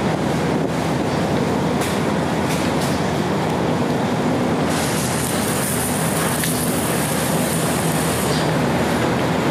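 Car ferry's engines running steadily: a loud, even mechanical rumble with a low hum. About halfway through, a steady high hiss joins in.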